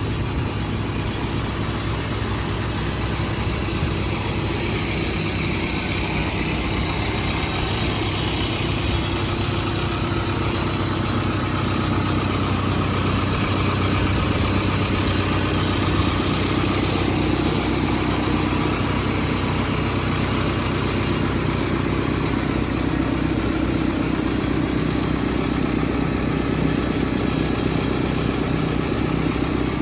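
JCB 3CX backhoe loader's four-cylinder diesel engine running steadily, its pitch drifting slightly up and down.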